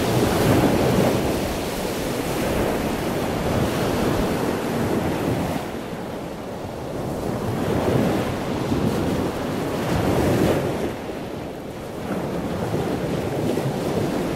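Ocean surf breaking and washing in, with wind buffeting the microphone; the rushing noise swells and eases a few times.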